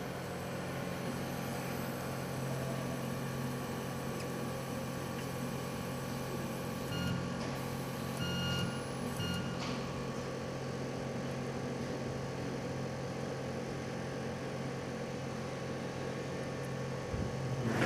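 Steady low hum of a BGA rework station running, with three short electronic beeps between about seven and ten seconds in. A knock comes near the end.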